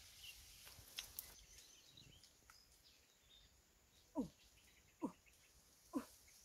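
An animal calling three times, about a second apart, each call short and dropping in pitch. Faint clicks come about a second in.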